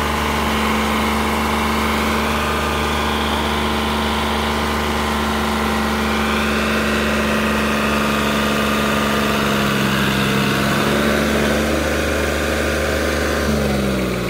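Tractor diesel engines running hard and steadily as a small John Deere 3028EN compact tractor strains against a larger New Holland tractor in a tug-of-war. Near the end the engine pitch drops.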